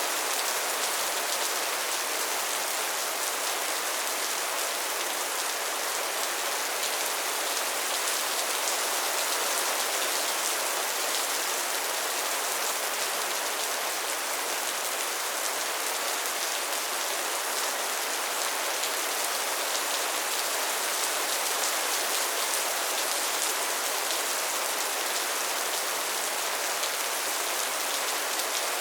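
Steady rain falling: an even, dense hiss of many small drop strikes that keeps up without a break.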